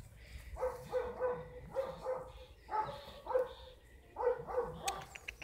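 German Shepherd puppy barking in a series of about ten short, high yaps.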